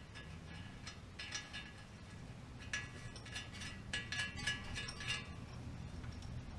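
Light metallic clinks and rattles in short clusters, like steel parts and hand tools knocking together, over a low steady hum.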